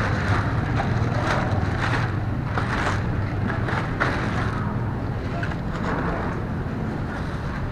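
A motor vehicle's engine running steadily, with wind noise on the microphone.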